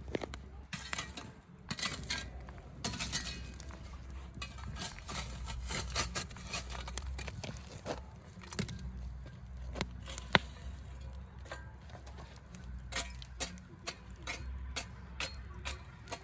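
Scattered clinks and light clatter of metal cookware and utensils being handled, with one sharper click about ten seconds in.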